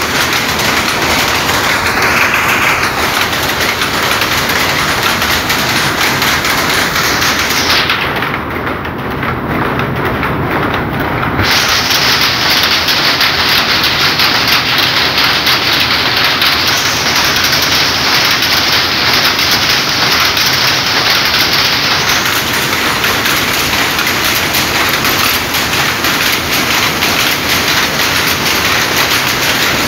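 A shed full of shuttle powerlooms weaving sarees, all running at once: a loud, dense, continuous mechanical clatter.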